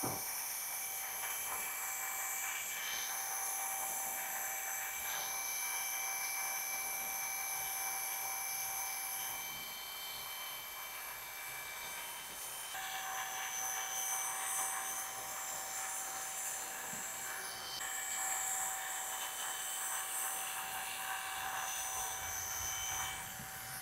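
Electric hair clipper running steadily and cutting short hair as it is worked along a comb, a buzz with a high whine. Its sound changes a little about halfway through and again a few seconds later as the blade moves over the head.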